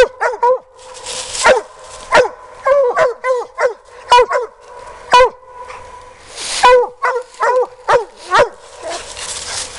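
Blue-ticked hound barking treed at the base of a tree, with about eighteen short, loud barks in quick succession, often two or three close together. This is a hound's tree bark, the sign that it has game treed.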